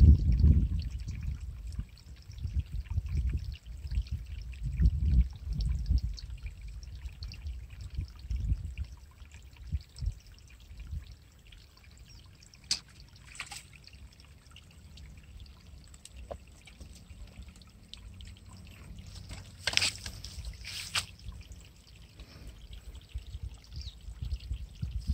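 Gusty wind rumbling on the microphone, loudest at the start, with a few sharp clicks around the middle.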